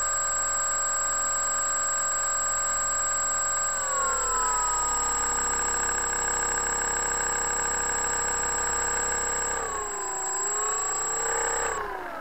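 Multiplex FunCub's electric motor and propeller whining steadily at low throttle as the floatplane taxis on the water. The pitch steps down about four seconds in, dips and comes back up near the end, then starts to fall away as the throttle is cut, and a thin high whine stops with it.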